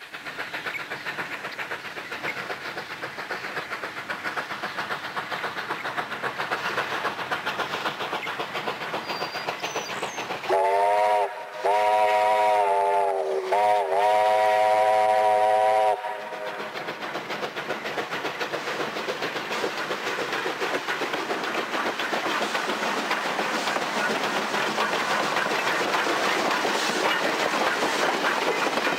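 Steam locomotive whistle sounding four blasts about ten seconds in: long, long, short, long, the grade-crossing signal. Underneath, the train runs steadily and grows louder as it comes closer.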